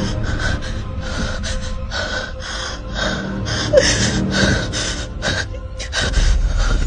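Rapid, noisy breaths close to the microphone, about two a second, over a steady low rumble.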